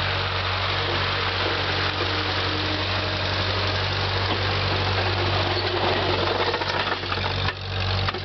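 Farm tractor engine running steadily as the tractor plows snow with a front blade, the sound briefly dropping about seven and a half seconds in.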